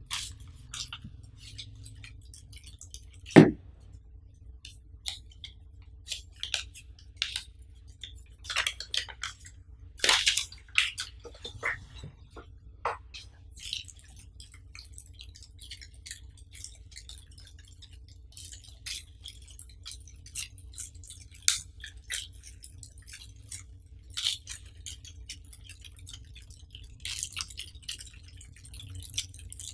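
Plastic packaging crinkling and rustling in short, scattered bursts as a TV's bagged accessories are handled, including a remote control in its plastic sleeve and small parts bags. A single sharp knock comes about three seconds in.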